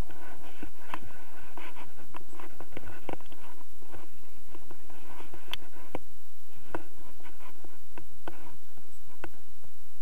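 Wind rumbling on the microphone, with rustling and many scattered sharp clicks from handling of the paraglider harness and camera mount.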